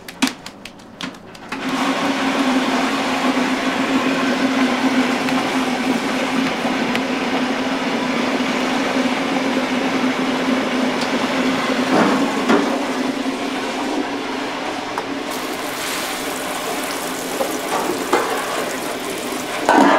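Raw ground-meat patty slapped rapidly back and forth between gloved palms, about four or five slaps a second, to knock the air out of it. It gives way to a loud steady rushing noise with a low hum under it. Over the last few seconds a high sizzle joins in as the patty fries in oil on the griddle.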